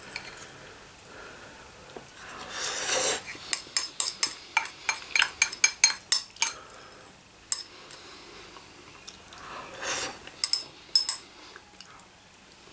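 Chopsticks clicking and scraping against a bowl while picking up the last ramen noodles. A quick run of sharp clicks comes a few seconds in, and a second, shorter cluster comes near the end, each after a brief scraping swell.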